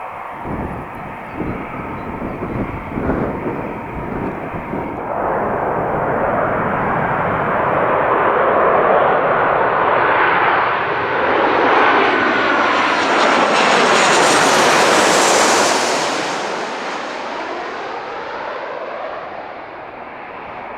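Aircraft passing close by: its engine noise builds to a peak about two-thirds of the way through, with a sweeping, phasing sound, then fades away. Wind buffets the microphone in gusts at the start.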